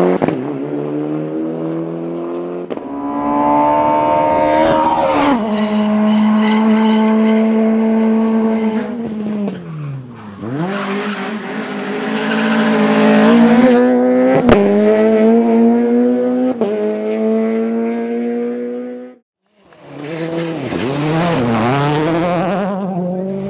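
Rally cars driven flat out, engines revving high and climbing through gear changes, with tyre squeal and a single sharp bang about halfway through. The engine note drops away and climbs again near the middle, and cuts off briefly before another car takes over near the end.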